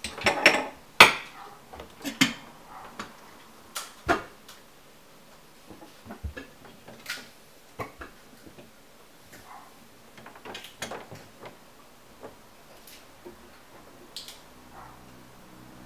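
Irregular clinks and knocks of hard, mostly metal objects being handled and set down. A few sharp ones come in the first four seconds, then lighter, sparser taps.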